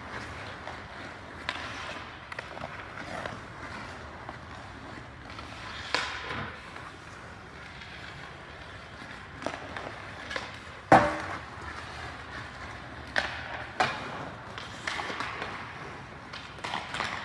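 Ice hockey training: skate blades scraping and carving on ice, with scattered sharp stick-on-puck impacts, the loudest a crack about eleven seconds in.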